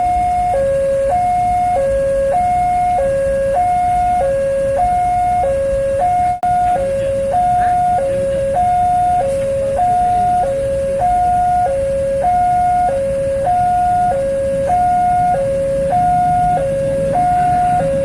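Railway level-crossing warning alarm sounding: an electronic signal alternating steadily between a higher and a lower tone, about one high-low pair a second, over a low rumble of traffic.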